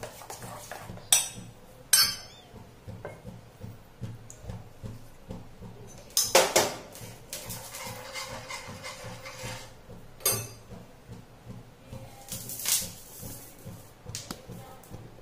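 Kitchen utensils clinking and knocking against a bowl and a pan: a few separate sharp clinks, a louder clatter about six seconds in, and a short hiss near the end.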